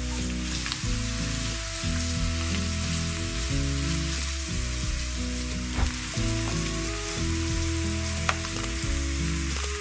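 Food sizzling as it fries in oil in a pan, a steady hiss, with a couple of sharp clicks about the middle and later on. Background music with sustained chords plays underneath.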